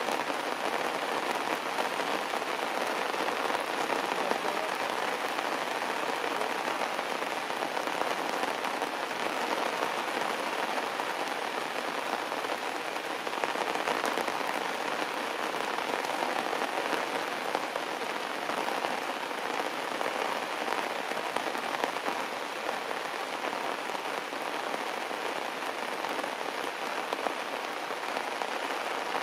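Heavy rain falling steadily on stone steps and leaves, an even hiss with no letup.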